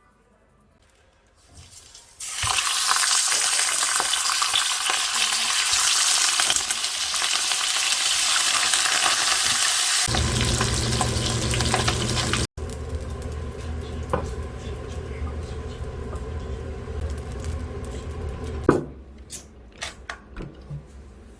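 Food sizzling loudly in a hot pan, starting about two seconds in. After about ten seconds it drops to a quieter sizzle over a low steady hum, which stops near the end and gives way to a few light clinks.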